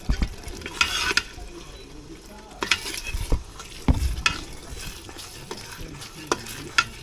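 A utensil stirring and scraping a thick curry sauce in a pot as it fries, with irregular scrapes and knocks against the pot over a faint sizzle.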